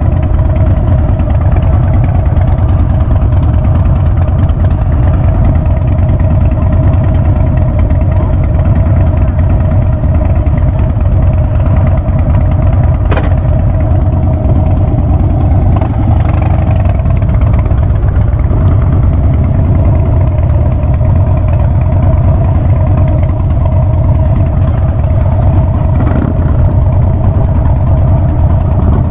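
Harley-Davidson Ultra Classic's V-twin engine through a Vance & Hines Big Radius exhaust, running steadily and loud on the ride. A single sharp click comes about halfway through.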